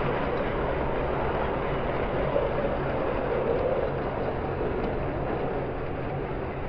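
Model train running steadily along the layout's track, a continuous rumble mixed with a low steady hum.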